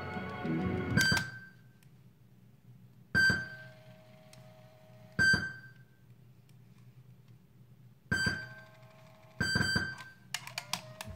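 Sony Walkman cassette player's mechanical transport buttons pressed one after another, about six sharp clunks with a short ringing after each. Brief snatches of tape playback start and stop between the presses.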